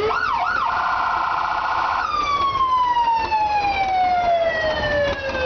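Fire truck siren: two quick rising-and-falling wails, then a rapid warble for about a second and a half, then one long tone sliding steadily down in pitch.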